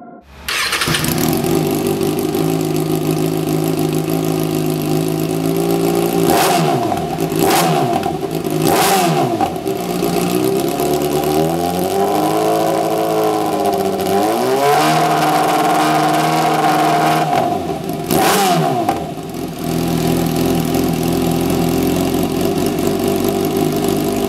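2014 Kawasaki ZX-6R's inline-four engine idling through a Lextek VP6 aftermarket silencer, blipped several times: quick sharp revs that fall straight back to idle, and one longer rev held and eased off near the middle.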